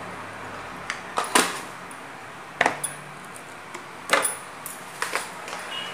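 Stainless steel tin and kitchen utensils clinking: about half a dozen short, sharp metal taps at irregular intervals while spice is sprinkled into the tin by hand.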